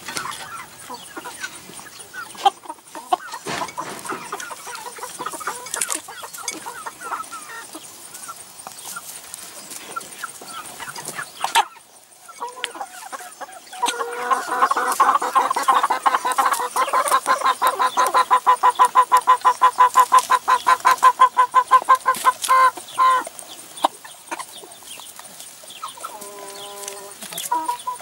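Chickens clucking as they feed, with scattered sharp clicks of beaks pecking at food in a plastic tray. About halfway through, one bird keeps up a fast run of repeated clucks for several seconds, and a short call comes near the end.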